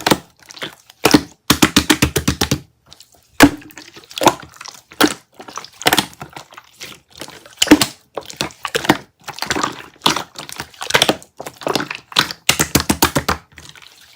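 Close-up crunching and crackling: runs of rapid small cracks, about ten a second, mixed with single sharper snaps.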